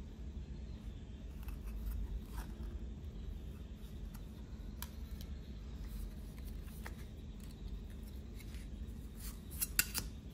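Blank metal cards handled by gloved hands: faint slides and scrapes as they are shuffled, with a few sharp clicks of card against card near the end, over a steady low hum.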